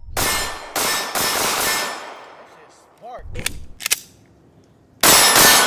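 Pistol shots, each ringing out with a long echo tail: about three in quick succession at the start, and two more close together near the end. Two sharp clicks fall in between.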